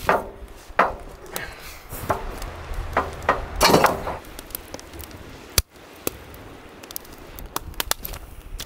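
Split firewood being loaded into a metal fire pit: several knocks and clatters of wood against wood and metal in the first four seconds, then a few faint, sharp ticks.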